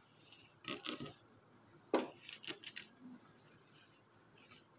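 Faint rubbing and scraping of a folded-paper toy snake slid by hand across a wooden tabletop, in several short strokes, with one sharp tap about two seconds in.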